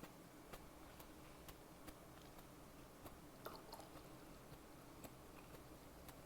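Faint, close-miked chewing: soft, wet mouth clicks and smacks at an irregular pace, with a small cluster of them about three and a half seconds in.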